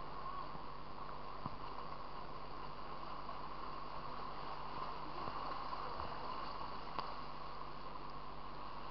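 Fast river water rushing and churning steadily, heard with the microphone right at the water's surface, with a faint knock about seven seconds in.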